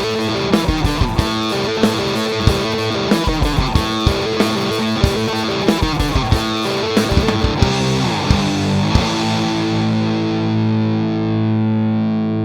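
Heavy rock riff on distorted electric guitar, with bass and drums, played through a Mantic Vitriol distortion pedal. The drums stop about nine seconds in, and a final distorted chord rings on.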